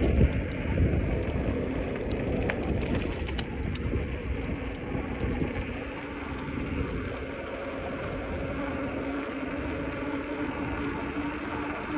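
Wind rumbling over the microphone while cycling, gustiest at the start, with road and tyre noise underneath. A steady hum comes in about halfway through.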